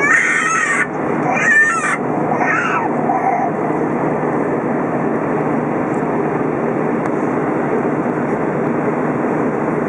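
Steady cabin roar of an Airbus A320 airliner in flight, engines and airflow heard from inside the cabin. A person's wavering voice rises over it a few times in the first three seconds.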